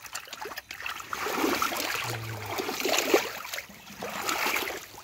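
Shallow muddy water splashing and sloshing as hands and legs move through it, in quick uneven splashes. A brief low hum sounds about two seconds in.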